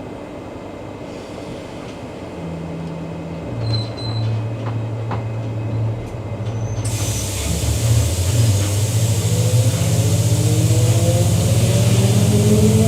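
Queensland Rail EMU electric train pulling away. A steady low hum sets in, a hiss comes in suddenly about seven seconds in, and then the traction motors' whine climbs steadily in pitch as the train gathers speed.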